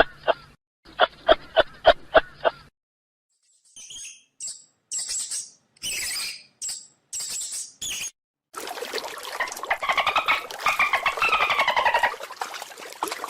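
A sequence of animal calls. First a beaver's quick, evenly pulsed whining calls, then a mouse's short high-pitched squeaks. Last comes a dolphin's rapid clicking with a whistle that rises and falls over it.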